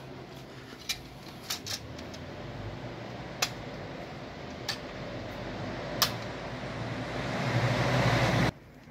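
An engine running steadily with a low hum, broken by a few sharp clicks. It grows louder over the last two seconds, then cuts off abruptly.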